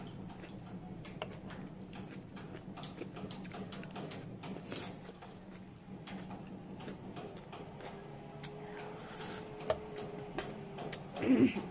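Close-up eating of pani puri: chewing, with crisp puri shells crunching and wet mouth clicks, heard through a clip-on microphone. A brief louder thump near the end.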